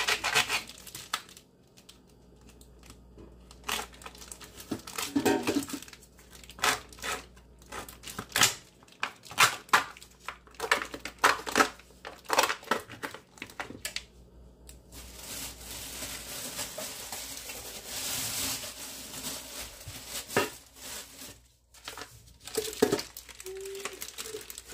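Plastic vacuum packaging around a rack of pork ribs crinkling and tearing as it is cut open with a knife and peeled off, with occasional knocks against the pan. There are many quick crackles at first, then a longer stretch of continuous rustling partway through.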